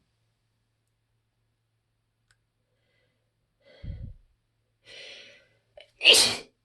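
A woman's sneezing fit: a few seconds of pause, then a sigh-like breath, a drawn-in breath, and one loud sneeze near the end.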